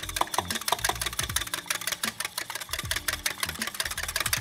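Wire whisk beating eggs in a glass bowl: a fast, steady run of light clinks and taps of the whisk against the glass.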